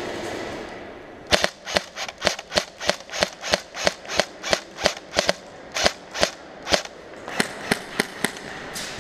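Airsoft rifle firing a string of about twenty single shots, roughly three a second, with a short pause a little past the middle.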